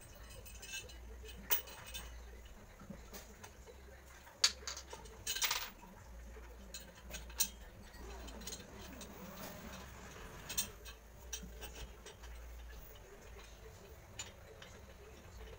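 Scattered light clicks, clinks and a few sharper knocks of metal tube table legs, screws and a screwdriver being handled and fitted during assembly of a small flat-pack table.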